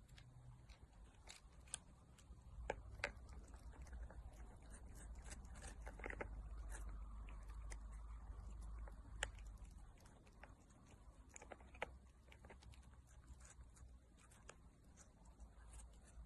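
Faint, irregular clicks and crunches over a low rumble, denser in the middle stretch.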